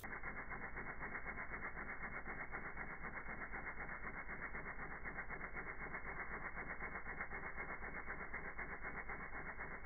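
Homemade tin-can thermoacoustic engine (steel-wool and rice regenerator, membrane driving a magnet) running, its sound slowed down with the slow-motion footage: a steady, rapid, even pulsing buzz, dull and muffled with all the high end cut off.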